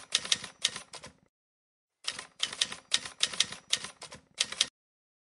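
Typing sound effect: rapid keystroke clicks in two runs, the first stopping about a second in and the second running from about two seconds in to near the end.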